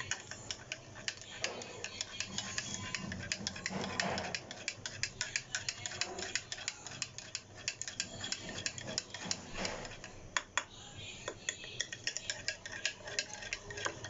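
Metal spoon clinking against cups in quick, irregular taps, as when stirring tea.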